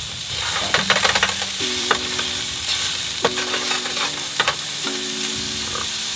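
Slices of meat sizzling as they fry in a pan on a portable gas stove, a steady hiss throughout. Scattered clicks and taps come from a wooden spatula stirring the meat and from utensils on the board.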